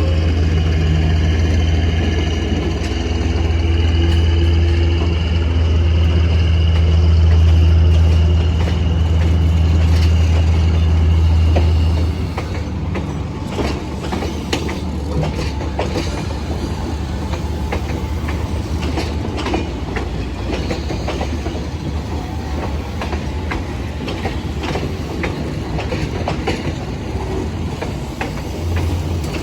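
D19E diesel-electric locomotive's engine droning low and steady for about twelve seconds, then dropping away, leaving the train's coaches rolling past with wheels clicking over the rail joints.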